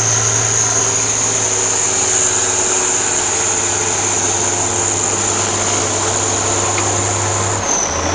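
Competition trial truck's engine running hard and steady as the truck climbs a steep slope, with a steady high whine over the engine note. The whine drops in pitch near the end as the engine note changes.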